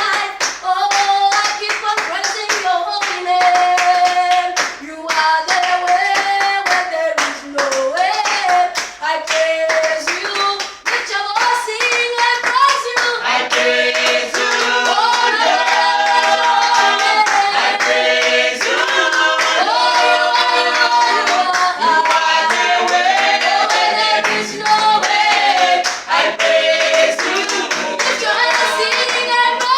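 Church praise team singing a gospel praise song with rhythmic hand clapping. From about halfway, the voices come in fuller, several singing together in harmony.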